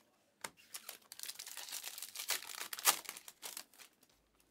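A Prizm basketball trading card pack's wrapper crinkling and tearing as it is ripped open, a dense crackle lasting about three seconds, loudest near the end.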